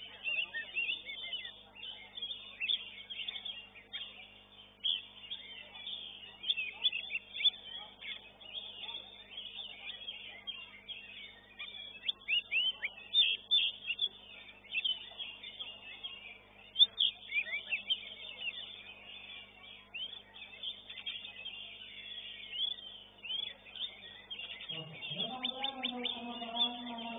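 Oriental magpie-robin (kacer) singing a rapid, varied string of short high chirps and whistles, over a faint steady hum. A man's voice comes in near the end.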